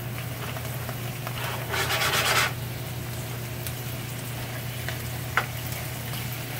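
Wooden spoon stirring Dungeness crab pieces in a nonstick frying pan, the shells scraping and clattering, with one loud scrape about two seconds in and a sharp knock near the end. A light sizzle of oil, garlic and green onions runs under it, kept weak because the pan's heat is low. A steady low hum runs underneath.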